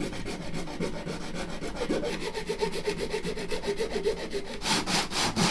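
Repeated rasping strokes of a hand tool working a PVC pipe. Fine, fast strokes give way to stronger, slower ones near the end.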